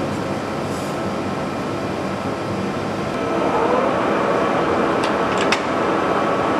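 TOS SM50C metal lathe running under power, its gearing giving a steady whine; about three and a half seconds in the whine rises in pitch and the running gets louder as the spindle speeds up, and a few sharp clicks follow about five seconds in.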